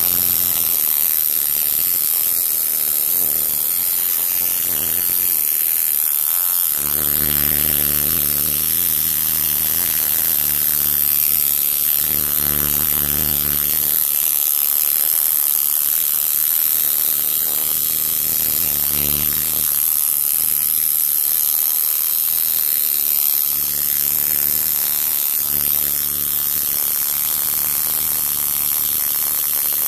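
Coil tattoo machine buzzing as it drives the needle into skin, the low buzz swelling and easing in stretches, over a steady high hiss.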